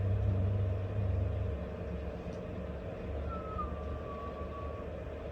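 A low, steady droning hum with a faint thin high tone that slides slowly downward in the second half. The deepest part of the hum fades out about a second and a half in.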